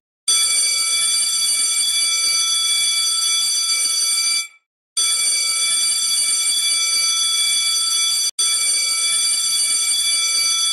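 Electric school buzzer bell sounding a loud, steady, even tone: it rings for about four seconds, stops for half a second, then rings for about seven seconds more.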